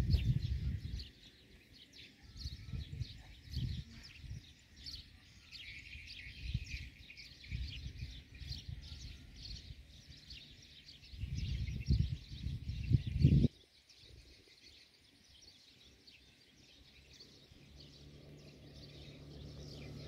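Small birds chirping and twittering, with several low rumbling gusts in between. Near the end a motor's steady hum rises as it comes closer.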